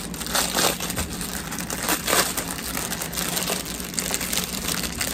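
Plastic packaging crinkling and rustling in irregular bursts as it is handled and pulled open.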